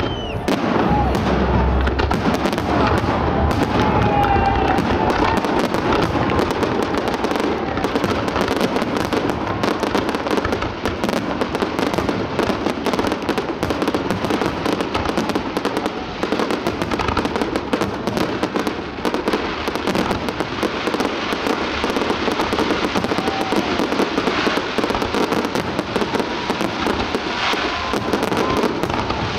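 Fireworks display: a continuous barrage of aerial shell bursts and crackling, many reports a second, with no let-up.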